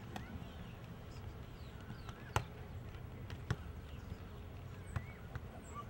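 A volleyball being struck by hand during a beach volleyball rally: a sharp slap a little over two seconds in, the loudest, then two softer hits about a second and a half apart, over a faint steady outdoor background.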